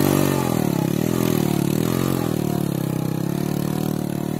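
Small motorcycle engine revved hard, its pitch rising and dipping several times as the rear wheel spins in deep soft sand: the bike is bogged down and being worked free, then pulls away.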